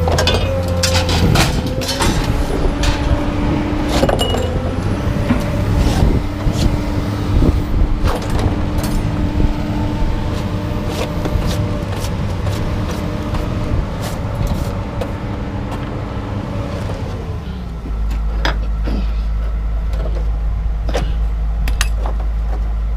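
Truck engine running amid frequent sharp knocks and clanks. About 18 seconds in, the engine note changes to a steady low drone.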